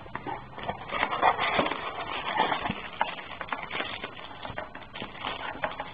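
Unboxing handling noise: a cardboard phone box being opened and a phone lifted out in its clear plastic wrap, with irregular rustling, crinkling and small clicks, busiest in the first few seconds.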